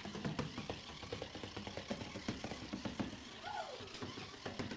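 Indistinct room noise of a household: scattered light clicks and knocks with faint background voices, and a brief high voice falling in pitch a little past halfway.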